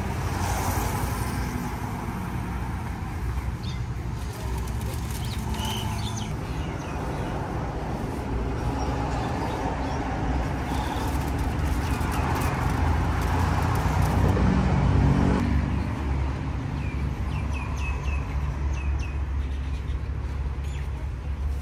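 Road traffic running steadily, with a vehicle passing loudest about two-thirds of the way through. Birds chirp briefly now and then, most clearly near the end.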